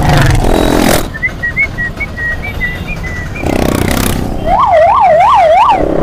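A siren sweeping rapidly up and down, about three times a second, for over a second near the end, over loud road and wind noise from a moving motorcycle.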